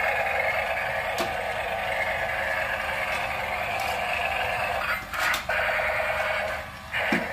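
Battery-powered toy tank with clear plastic gears, its motor and gears whirring steadily as it drives, with a few light clicks.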